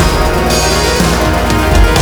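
Loud background music with a steady beat, laid over the footage.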